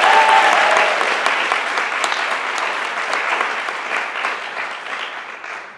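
Audience applauding, with one brief high cheer at the start; the clapping gradually dies away.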